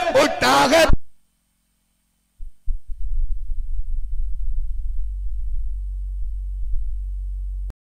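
A male voice's sung marsiya recitation ends about a second in, followed by dead silence. A steady low electrical hum then comes on about two and a half seconds in and cuts off abruptly with a click near the end.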